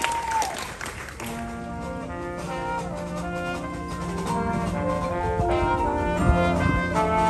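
Marching band brass playing sustained, layered chords that enter about a second in and slowly swell, with a low drum hit near the end. Crowd applause fades out at the very start.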